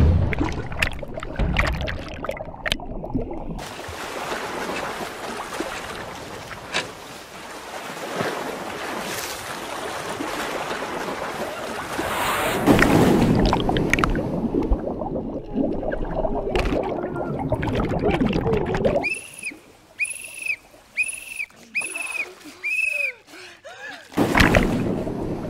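Pool water splashing and churning as two swimmers struggle, heard partly as a muffled underwater rush of bubbles. Toward the end it drops away to a run of short, evenly repeated high tones, then a loud splash.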